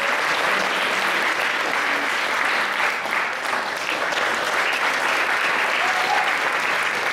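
Audience applauding loudly and steadily, with a single voice briefly calling out over the clapping near the end.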